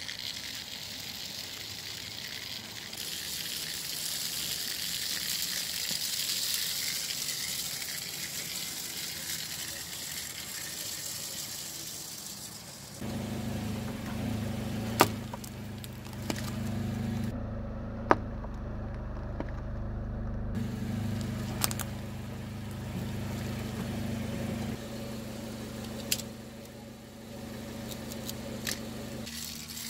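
A steady high hiss for about the first thirteen seconds, then a car engine idling with a steady low hum, broken by a few sharp clicks.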